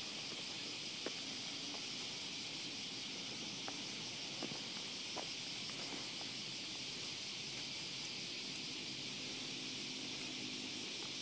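Steady high-pitched drone of a summer insect chorus, with a few faint clicks.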